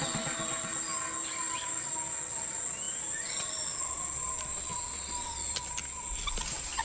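Rainforest ambience: a steady high-pitched insect drone with a few short, whistled bird calls.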